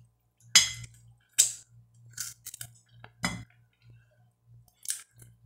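Mouth sounds of eating roast chicken by hand, picking the meat off the bones: about six short, sharp smacks and clicks spread over several seconds, with a faint steady hum underneath.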